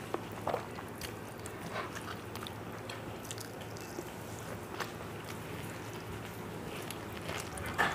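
A person eating rice with dal and fish curry by hand close to a clip-on microphone: chewing, lip smacks and the wet squish of fingers working rice, as scattered short clicks over a low steady hum.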